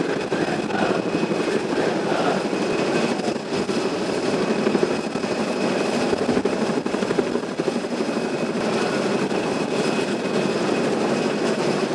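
Helicopter flying low overhead, its rotor and engine noise running steadily throughout.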